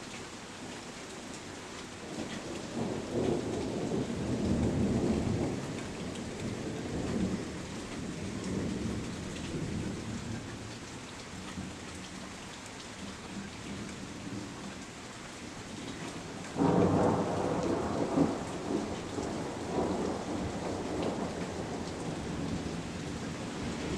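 Steady rain falling, with two rolls of thunder. The first is a rumble that builds a couple of seconds in and lasts a few seconds. The second, two-thirds of the way through, starts suddenly as a louder, sharper clap and rumbles on for several seconds.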